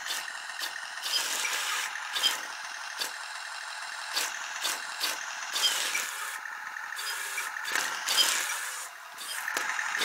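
1:27-scale remote-control Tiger tank toy driving over a crumpled shirt: a steady whir from its drive, broken by irregular rattling clicks.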